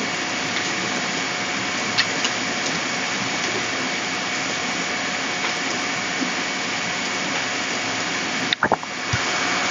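Steady background hiss with a faint steady whine in it, and a few faint clicks. The hiss dips briefly near the end and comes back.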